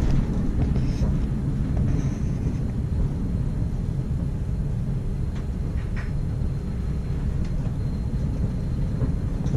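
Bombardier Variotram low-floor tram running along the track, heard inside the passenger cabin: a steady low rumble of wheels and running gear, with a few faint, brief high-pitched squeaks and ticks.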